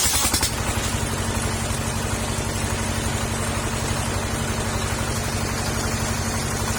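Petrol engine of a circular sawmill running steadily between cuts, with the saw not in the wood; the cutting hiss stops about half a second in.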